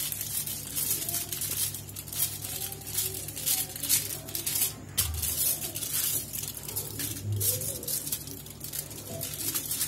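Wooden rolling pin rolled slowly back and forth over a sheet of aluminium foil folded around soft khoya, the foil crinkling and rustling irregularly under it. A steady low hum sits underneath.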